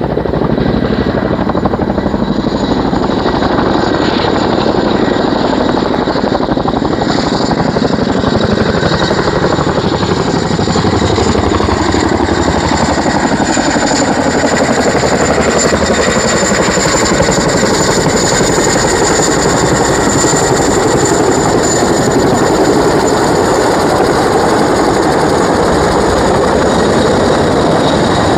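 Boeing Chinook tandem-rotor helicopter coming in low to land: loud, steady rotor beat with a high turbine whine over it. Its tones slide down in pitch partway through as it passes close by.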